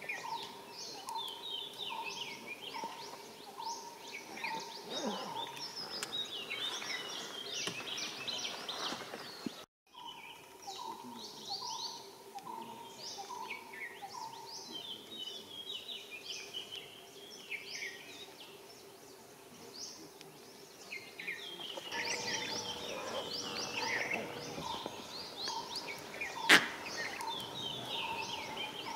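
Forest birds chirping and twittering in a busy chorus, with a lower call repeated about twice a second in stretches and a faint steady hum beneath. The sound cuts out for an instant about ten seconds in, and there is one sharp click near the end.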